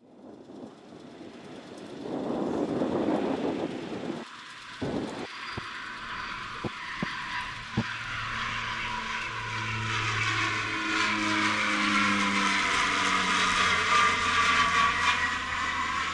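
HC-144 Ocean Sentry's twin General Electric CT7 turboprops running as the aircraft flies by. The sound fades in and grows steadily louder, with a rushing, swooshing sound over a steady propeller drone as it comes past.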